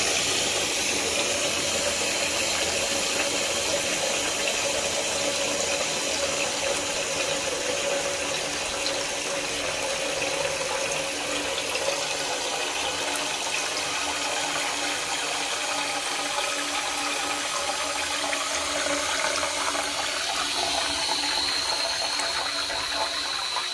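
Toilet cistern refilling through a newly fitted ball valve, water running in steadily as the float rises. A thin whistle comes in near the end.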